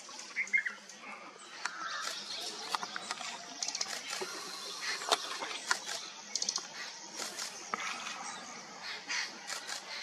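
Small wild birds calling in the open, many short sharp chirps and clicks overlapping, some in quick rattling series.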